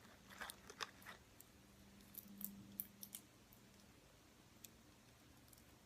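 Faint crunching of half-popped popcorn being chewed: a few crisp clicks in the first second and scattered fainter ticks a couple of seconds in, otherwise near silence.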